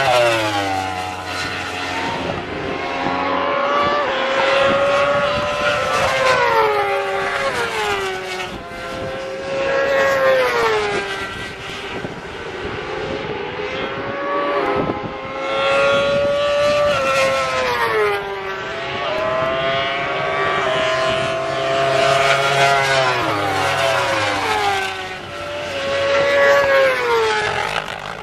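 Superbike racing motorcycles going past at speed, one after another. Each engine climbs in pitch through a gear and drops sharply at every shift, over and over.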